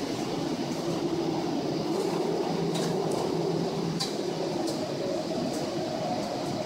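A steady mechanical rumble with a low hum in it, and a few light clicks or clinks scattered through it.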